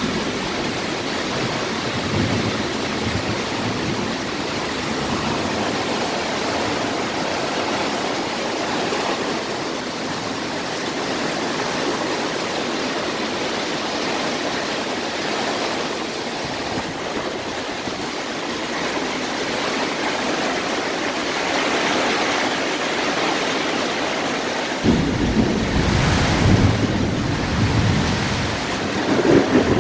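Torrential thunderstorm rain pouring down steadily as an even hiss. Near the end a low, uneven rumble comes in over it.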